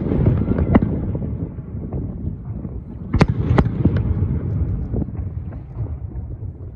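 Aerial fireworks shells bursting: sharp bangs over a continuous low rumble, with a quick run of about three bangs a little past three seconds in.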